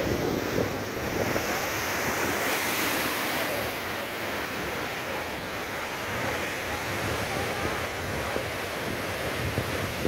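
Heavy storm surf breaking and churning over concrete breakwater blocks, a steady wash of crashing water, with wind buffeting the microphone.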